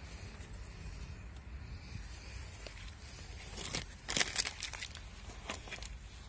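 Rustling and crinkling handling noise from a work glove on the rubber turbo intake hose, with a burst of crackles about four seconds in and a few smaller ones after, over a low steady rumble.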